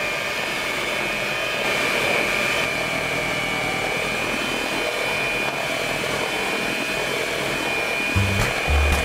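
Electric hand mixer running at a steady speed, a high motor whine as its beaters churn flour and milk into banana bread batter in a stainless steel bowl. Low notes of background music come in near the end.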